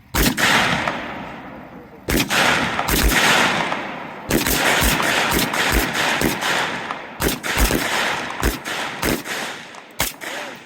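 C7A2 rifles (5.56 mm) firing single shots on a range, about sixteen shots at an irregular pace from several shooters, some only a fraction of a second apart. Each crack trails off in a long echo.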